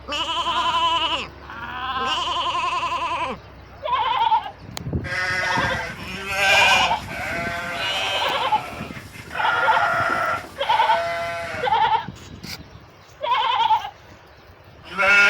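Sheep bleating over and over: about a dozen wavering baa calls, each about a second long, with short gaps between them.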